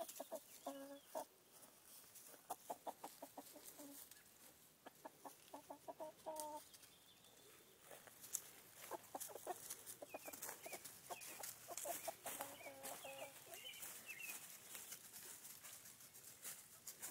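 Chickens clucking in repeated short runs of calls, with some higher chirping calls in the middle, as they are chased. Footsteps and rustling through the undergrowth make sharp scuffs among the calls.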